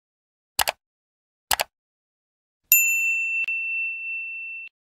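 Two short double clicks about a second apart, then a single high ding that rings on for about two seconds and slowly fades, with a faint tick partway through.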